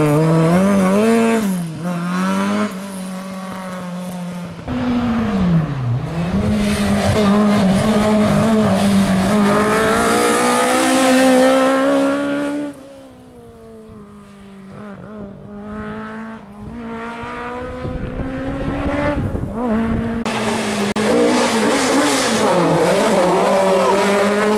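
Ford Escort Mk2 rally car engines revving hard and changing gear, the pitch rising and falling with the throttle, as several cars in turn take corners at racing speed. The sound drops away and is fainter for several seconds past the middle, then comes back loud.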